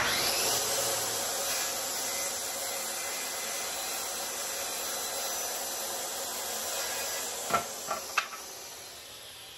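DeWalt corded circular saw starting abruptly and cutting through a wooden board, a steady loud saw noise. It fades away as the cut finishes, with three sharp knocks a little past seven and a half seconds in.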